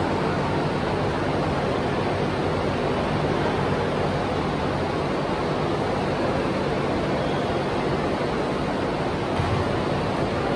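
Large drum fans running: a steady rushing of air with a low hum underneath.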